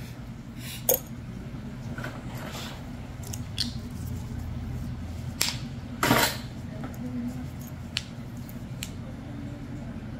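Metal pedicure tools (probe and nail nippers) working at an ingrown big toenail: a handful of short sharp clicks and scrapes, with a short hiss about six seconds in that is the loudest sound, over a steady low hum.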